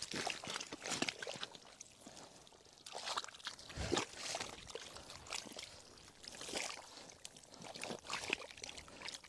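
Wet mud and shallow water being worked by hand or stepped through, squelching and sloshing in irregular short bursts, the biggest about four seconds in and again near six and a half.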